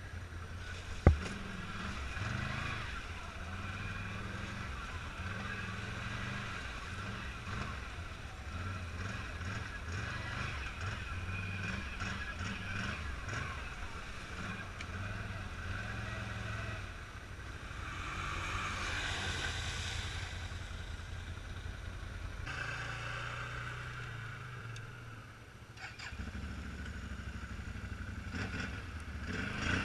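ATV engine running at varying throttle, rising and falling as the quad crawls through mud holes and puddles. There is a sharp knock about a second in. The engine eases off for a few seconds past the middle and picks up again near the end.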